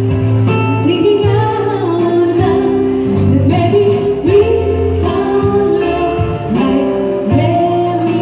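A woman singing into a microphone over a Korg arranger keyboard's full accompaniment of held chords, bass and a steady drum beat, played through a PA.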